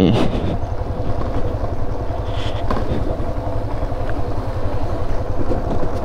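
Motorcycle engine running steadily on the move, with a rapid low beat from its firing.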